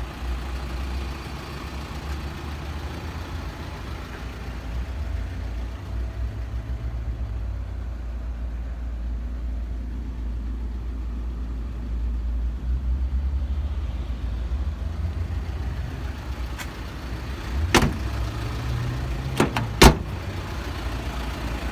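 Doors of a Volkswagen Transporter T5 van being handled: a few sharp clacks near the end, the two loudest like a door latching shut, over a steady low rumble.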